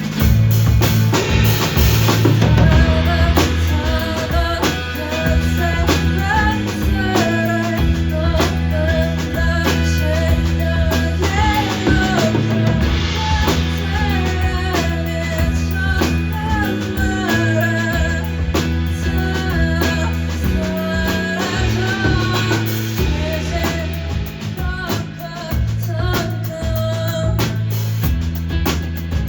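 Live band playing a song: a singer's voice over acoustic guitar, low notes and a drum kit keeping a steady beat.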